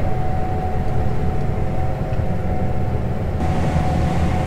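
Combine harvester running steadily: a constant low engine rumble with a steady mechanical whine over it, and a brighter hiss joining about three and a half seconds in.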